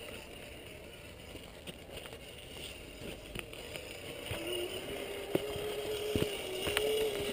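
Gmade Sawback RC scale crawler's brushed electric motor and geared drivetrain whining as it crawls, the whine starting a little over halfway in and holding a near-steady pitch. Scattered clicks and crunches run throughout.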